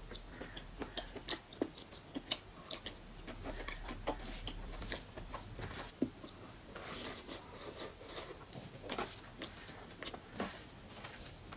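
Close-up eating sounds: wet, irregular chewing clicks and lip smacks from a mouthful of rice and mutton fat curry, mixed with the soft squish of fingers working rice and curry together on a steel tray.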